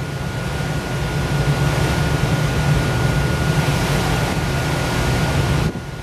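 Steady low rumble of a ferry underway, mixed with wind noise on the microphone and water wash, with a thin steady whine above it; the noise drops suddenly near the end.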